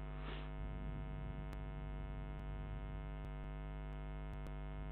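Steady electrical mains hum with many harmonics in the microphone line, with a few faint keyboard key clicks as a word is typed.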